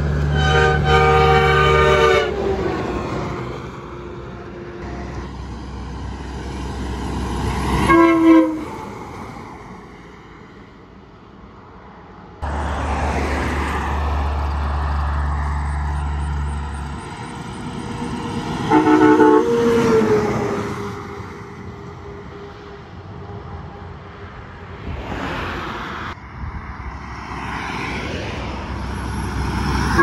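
Air train horns on passing semi trucks, sounded in separate chord blasts as one truck after another goes by: a long blast at the start, a short one about eight seconds in, another around twenty seconds in, and one more at the end. Between the blasts come the trucks' engine and tyre noise.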